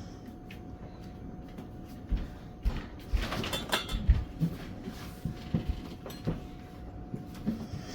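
Scattered light knocks and thumps of dishes and utensils being handled, busiest a few seconds in, over a faint steady hum.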